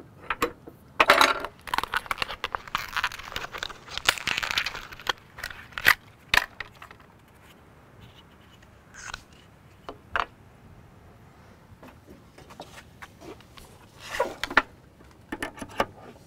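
Clicks, clinks and scrapes of a wrench, router bit and plastic insert rings being handled on a router table's aluminium top while the router bit is changed. For a few seconds near the start there is a stretch of rustling and scraping.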